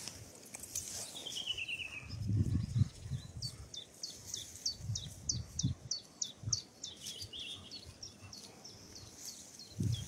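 Songbirds singing: a quick falling trill about a second in, then a long run of short repeated high notes, a few each second. Low thumps and rustling close to the microphone come and go underneath, loudest between about two and three seconds in.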